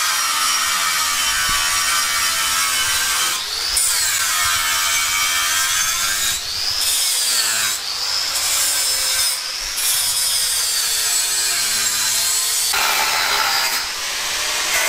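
Electric grinder working a metal part. The motor's pitch sags and recovers as the tool is pressed in and eased off, with a few short breaks.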